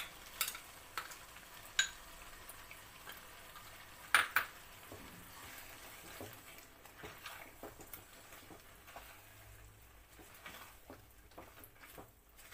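Metal spoon knocking and scraping against a cooking pot as yogurt is added to chicken and stirred in, over a faint sizzle. A few sharp knocks come first, the loudest a pair about four seconds in, then softer, scattered scrapes.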